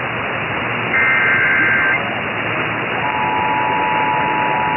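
Emergency Alert System header over a hissy radio broadcast: a one-second burst of the warbling SAME data tones about a second in. About three seconds in, the steady two-tone EAS attention signal starts.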